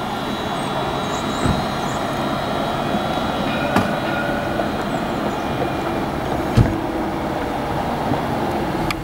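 Light-rail tram running on its track: steady rolling noise with several high, steady whining tones over it. Three short knocks come through, the loudest about two thirds of the way in.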